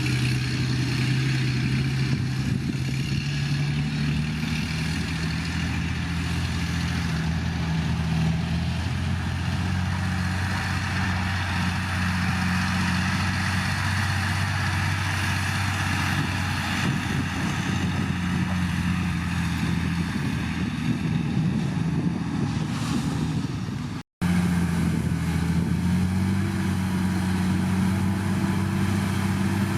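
Heavy diesel engine of a Shantui bulldozer running steadily at working revs, its pitch shifting up and down a little with the load. The sound cuts out for an instant near the end.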